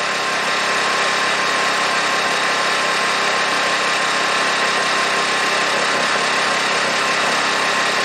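Honda EU2200i inverter generator's single-cylinder four-stroke engine running steadily on propane, cold, just after its first start on a propane conversion kit.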